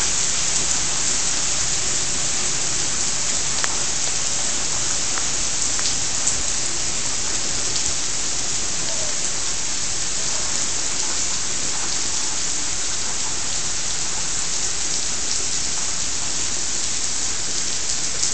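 Steady rain from a hurricane's outer feeder band falling on asphalt, grass and trees, an even hiss with a few sharp ticks of close drops here and there.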